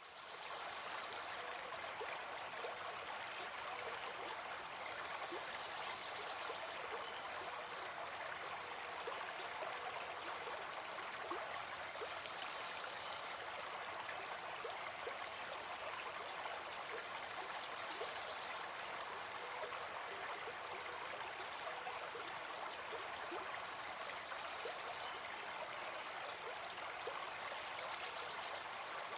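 Shallow stream babbling steadily, a continuous rush of flowing water that fades in at the very start.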